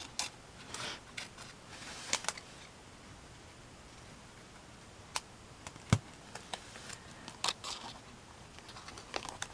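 Scissors snipping paper in short, irregular cuts, with paper rustling as the cut-out is handled. A single sharp knock about six seconds in.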